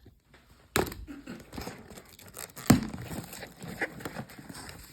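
Cardboard shipping box being opened by hand: two sharp rips about two seconds apart, with packaging crinkling and rustling between and after them.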